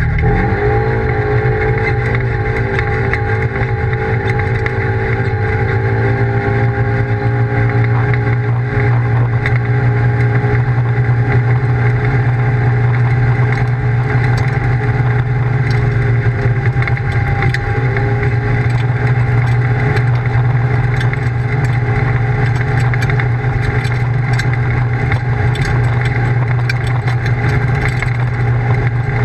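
Polaris RZR side-by-side's engine running at speed, heard from inside the open cab. Its pitch climbs over the first couple of seconds as it accelerates, then holds steady. It dips briefly about 16 seconds in and climbs back a couple of seconds later.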